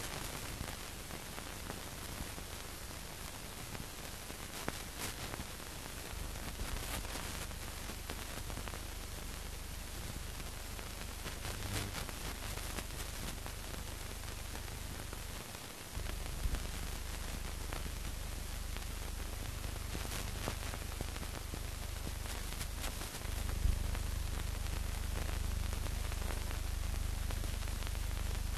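Steady hiss and crackle of an old 1940s film soundtrack with no speech, sprinkled with clicks, under a low hum that steps louder about halfway through and again near the end.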